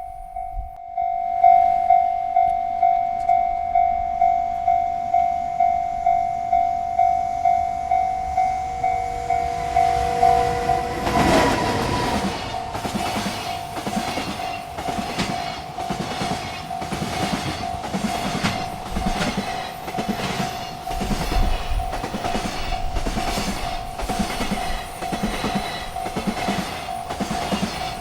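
Railroad crossing bell ringing about twice a second. About eleven seconds in, a freight train reaches the crossing and its cars roll past with rapid clicking of wheels over the rail joints, the bell still ringing underneath.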